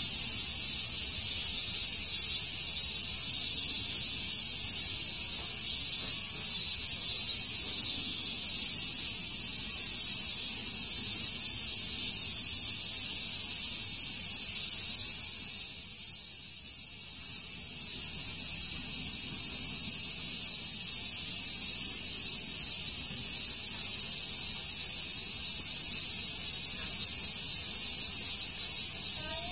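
A chorus of summer cicadas: a loud, steady, high-pitched hiss that does not pause. It dips briefly about halfway through.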